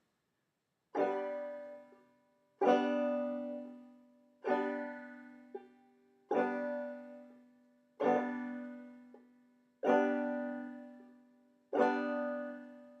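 Open banjo strings brushed across in a slow clawhammer down-stroke: seven strums, about two seconds apart, each left to ring out and fade.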